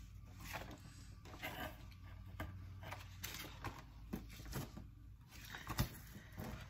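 Faint rustling and light ticks of a cardboard snack box and a paper guide being handled, with one sharper click near the end.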